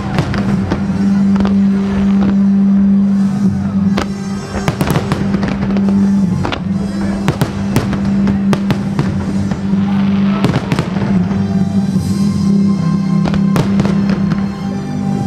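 Aerial fireworks shells bursting in many sharp bangs in quick, irregular succession, with crackling, over loud music holding a steady low note.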